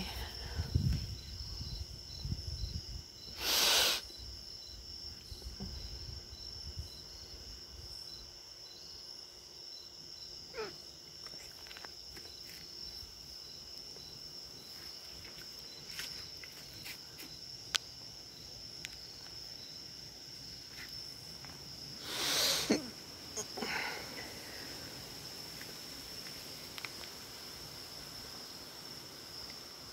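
Night insects chirping: a steady high-pitched trill throughout, with a second, slower pulsing chirp for about the first ten seconds. Two short bursts of noise, about half a second each, stand out as the loudest sounds, one a few seconds in and one about two-thirds of the way through.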